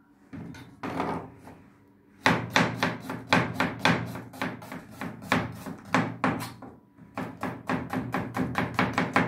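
Kitchen knife cutting a vegetable on a plastic cutting board, the blade knocking the board. A few slow cuts come first, then from about two seconds in a steady run of quick, even strokes.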